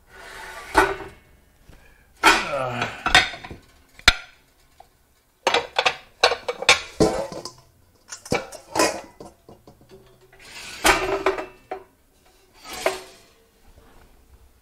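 Casserole pans being handled and pulled out of a stack, clanking and knocking against each other in repeated irregular clusters, some knocks with a short ringing tail.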